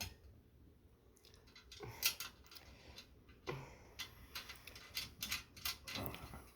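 Irregular light clicks and taps of metal hardware and a hand tool as screws, washers and nuts are fitted and tightened.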